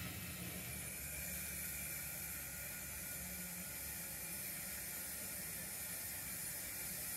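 Steady, quiet steam hiss over a low hum, from a model steam locomotive's sound system simmering while the engine stands still.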